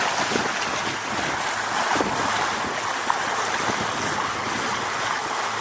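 Sea water washing and splashing around a sailing boat, with wind on the microphone.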